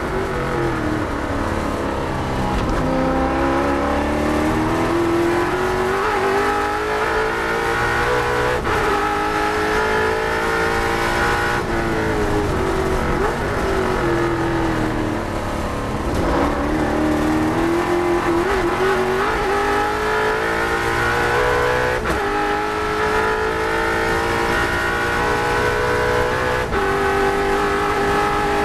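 Holden HQ Monaro race car's V8 engine heard from inside the cabin at racing speed. The pitch drops as it brakes and downshifts at the start and again about halfway through. In between and afterwards it revs hard up through the gears, with several short breaks at the upshifts.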